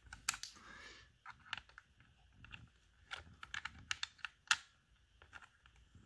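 Small irregular clicks and ticks of a hex key turning a screw into the plastic back case of a drone controller, drawing the case down. The loudest click comes about four and a half seconds in.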